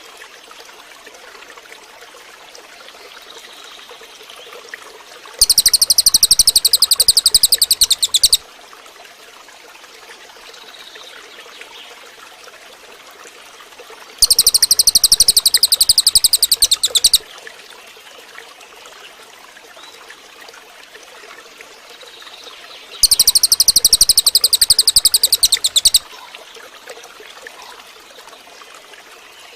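Cililin bird song: three loud, high-pitched, rapidly pulsing trills of about three seconds each, coming at even intervals about nine seconds apart. A faint steady hiss runs between them.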